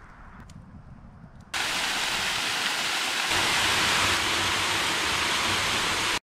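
Waterfall rushing steadily down a rock slab, coming in suddenly about a second and a half in and cutting off abruptly near the end. Before it, only a faint background with a few light clicks.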